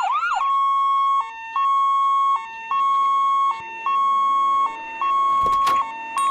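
Ambulance siren: a quick rising-and-falling yelp for half a second, then a two-tone hi-lo wail that alternates a long high note with a short lower one, about once a second.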